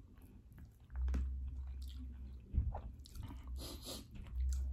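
Close-up chewing and mouth sounds of people eating noodles and meats by hand, with scattered clicks, a knock about two and a half seconds in, and a low rumble through much of it.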